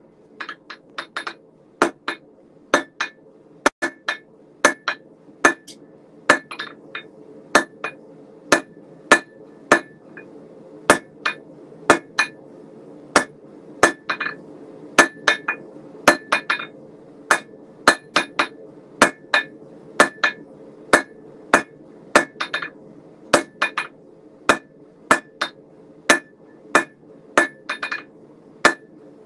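Blacksmith's 3-pound German pattern cross peen hammer striking hot S7 tool steel on an anvil: a long, even run of blows, a little under two a second, each with a short metallic ring. A propane gas forge runs steadily underneath.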